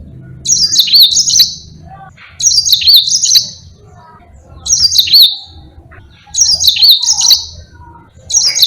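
Yellow-fronted canary (Mozambique singer) singing short, high, rapid twittering phrases of about a second each, repeated roughly every two seconds.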